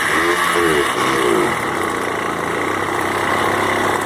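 A small engine running loudly, its revs rising and falling a few times in the first second or so, then holding steady.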